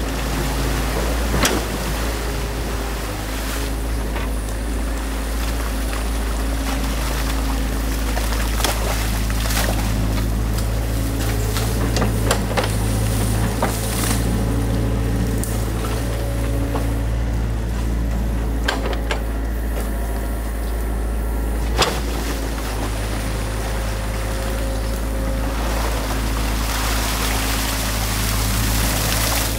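New Holland mini excavator's diesel engine running steadily as its bucket works in the stream, with scattered sharp knocks of the bucket against stones and dam debris. Stream water splashes and flows underneath.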